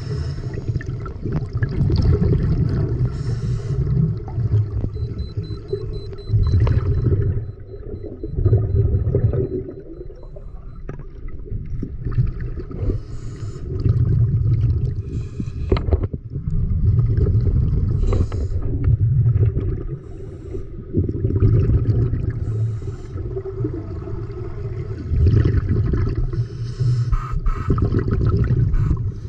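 Underwater water noise picked up by an action camera in its waterproof housing. It is a low, rushing rumble that swells and fades every second or two as the camera moves through the water, with occasional small clicks.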